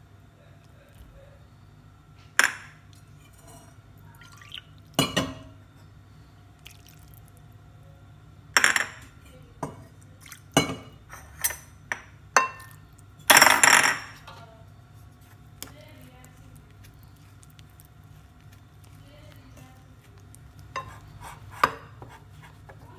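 Dishes and utensils clinking and knocking against a glass mixing bowl while olive oil and flour are mixed into dough: about ten sharp clinks scattered through, with a longer, louder rattle about halfway, over a steady low hum.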